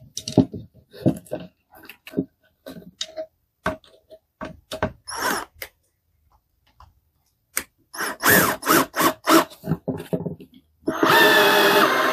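Scattered knocks and clicks of hardware being handled as an air filter regulator unit is mounted on a wall, with a run of quick rattling strokes about eight seconds in. A power drill runs for about a second and a half near the end.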